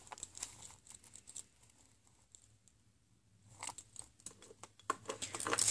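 Soft handling noise of small jewelry pieces: scattered light clicks and rustles as metal ball chains and charms are moved, with a quiet gap in the middle and the clicking picking up again near the end.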